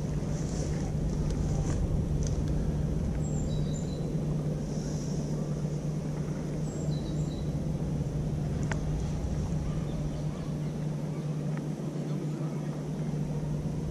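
A steady low hum, with uneven low rumbling underneath and a few faint high chirps.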